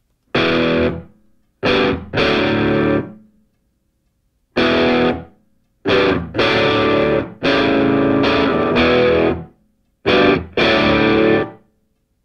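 Rock music: distorted electric guitar playing separate chords, each cut off into complete silence before the next.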